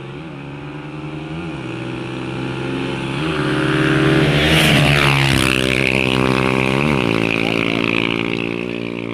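Motorcycle engine running, getting louder to a peak about halfway through and then fading, with several short throttle blips.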